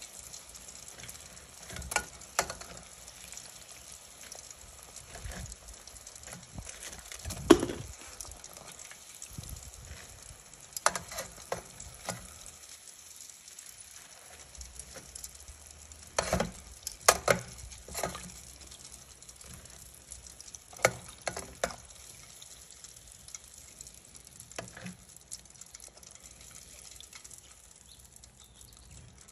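Beer-battered tempura broccoli deep-frying in hot oil with a steady sizzle. Every few seconds metal tongs click and clink against the pot and the draining rack as pieces are turned and lifted out, with the loudest knock about seven seconds in.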